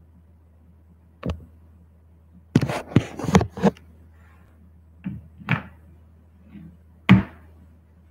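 A series of knocks and thumps over a low steady hum: one about a second in, a quick clatter of several around three seconds in, two more a little after five seconds, and a single loud thump near the end.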